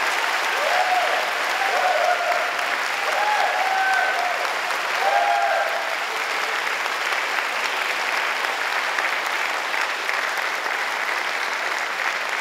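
Audience applauding steadily in a concert hall, with several short shouted cheers over the clapping in the first half.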